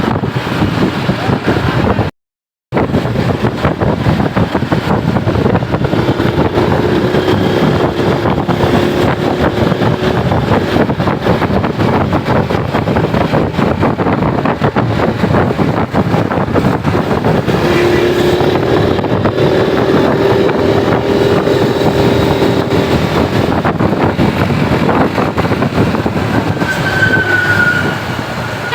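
Loud, steady noise of vehicles on the move with wind rushing over the microphone, and a faint steady hum at times. The sound cuts out for about half a second around two seconds in.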